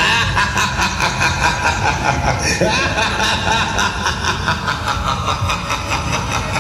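The Air Raid fairground ride's machinery running through a loud, continuous fairground din, with people's voices mixed in.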